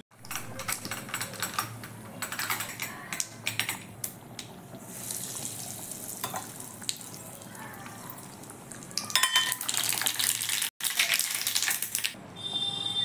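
Steel pots and utensils clinking and knocking, with hot oil sizzling in a small steel tempering pan as seeds fry in it for a tadka.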